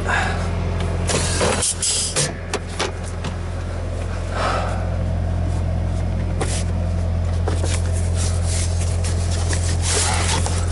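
Scania truck's diesel engine idling steadily in the cab, with a cluster of sharp clicks and knocks about one to three seconds in and a few more later as the overhead storage locker is opened and rummaged through.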